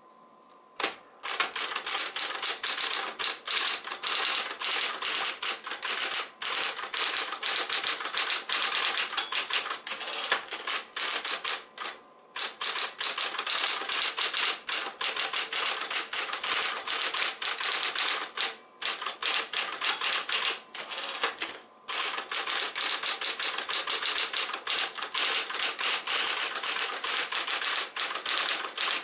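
Singer T-82 electric typewriter, a rebadged early-1960s Smith-Corona Coronet, typing: fast, continuous runs of keystrokes with a few short pauses.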